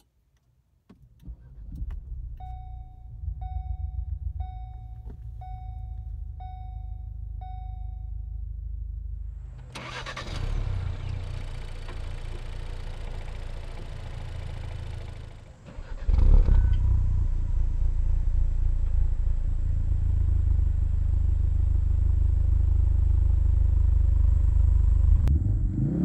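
Ford Focus RS's 2.3-litre turbocharged four-cylinder starting up and idling, with a cabin warning chime repeating about once a second for several seconds. The same engine idles, heard with the bonnet open. Then it runs louder and steady at raised revs, near 4000 rpm, heard from the driver's seat.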